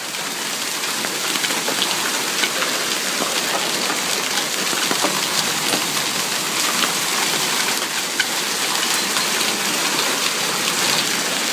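Heavy hail and rain pelting down steadily, a dense hiss with many small sharp hits of hailstones striking.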